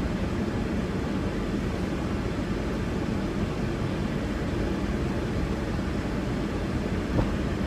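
Steady hum of a stationary car's idling engine and air conditioning heard inside the cabin, with a faint knock near the end.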